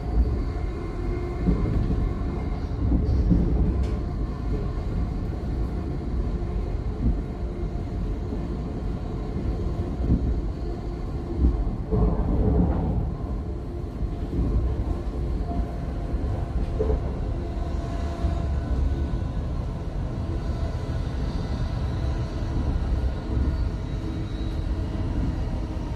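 Running noise inside the passenger saloon of a Class 700 electric multiple unit at about 58 mph: a steady low rumble of the wheels on the rails and the carriage body.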